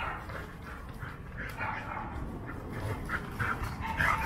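Australian shepherds playing rough, with short whines and yelps and panting.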